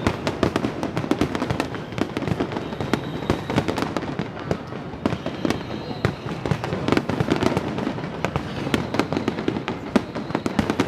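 Fireworks display: many shells bursting in quick overlapping succession, a continuous run of sharp bangs and crackling.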